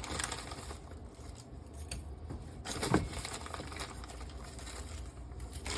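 Soft crinkling and rustling of a packaging bag as brown sugar is scooped out for measuring, with one short knock about three seconds in.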